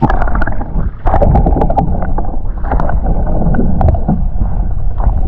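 Small fishing boat moving across the water: a loud, steady rumble of hull and water noise with wind buffeting the microphone, starting suddenly.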